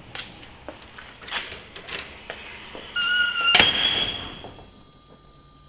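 Clicks and rattles of keys and a metal door being handled, then a brief squeak and a loud bang that rings out for about a second, as a steel hangar door swings and shuts.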